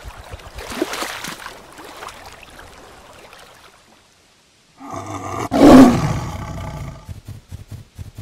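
A lion roaring about five seconds in, swelling to a loud peak and fading over about two seconds. A fainter animal sound comes before it, in the first few seconds.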